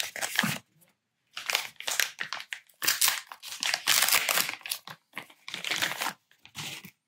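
Plastic packaging sleeve crinkling by hand in several short bursts with brief pauses between them, as a phone case is taken out of it.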